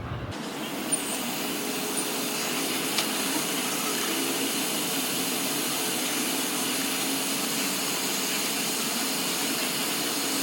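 Steady rush of blowing air that starts just after the beginning and holds even, with a few faint clicks in the first few seconds.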